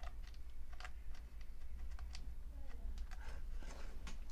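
Scattered plastic clicks and knocks from handling a hand-made PVC miniature speaker array: it is set on its stand and a jack cable is plugged into it. A low steady hum runs underneath.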